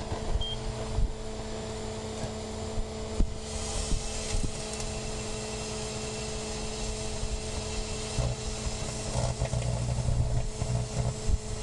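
Microwave oven running with a firework inside it: a steady electrical hum over a low rumble, with a few faint irregular ticks in the later seconds.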